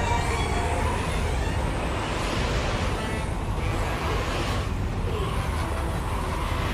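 Anime battle sound effect: a continuous, dense rushing rumble with a heavy low end, like a powerful blast of wind, holding steady throughout.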